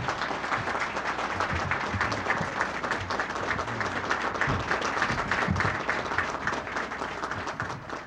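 An audience applauding, the clapping thinning out near the end.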